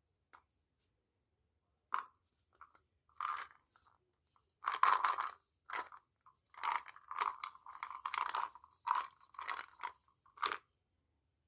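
Plum-seed rattle being shaken in short, irregular bursts, the dry seeds clattering against each other. A few separate shakes come first, then a closer run of shakes from about five seconds in, which stops shortly before the end.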